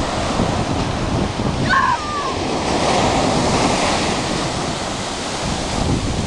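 Ocean surf washing in, with wind buffeting the microphone. A brief high-pitched cry sounds about two seconds in.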